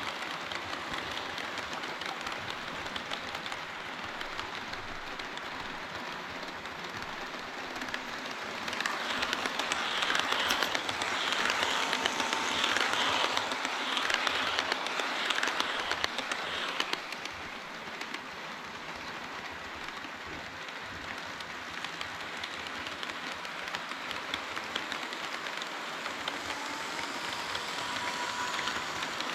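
HO-scale model train running on the layout track, its wheels and motor giving a steady rolling rattle that gets louder for several seconds in the middle.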